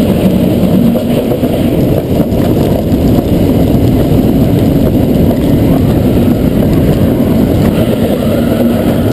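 Loud, steady rush of wind buffeting the microphone on board an inverted roller coaster at speed, over the low rumble of the train running along the track.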